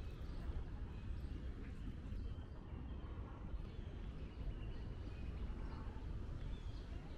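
Park ambience: small birds chirping now and then in the trees over a steady low rumble of city and wind noise.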